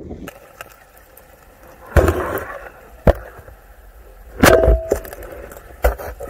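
Underwater sound on a spearfishing dive: a low hiss broken by five sharp knocks and thuds, roughly a second apart. The loudest is a cluster with a short ringing tone, a little past halfway.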